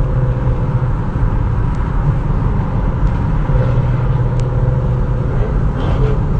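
Steady engine drone and road noise heard from inside a car cruising at highway speed. The low engine note grows stronger for a couple of seconds about midway.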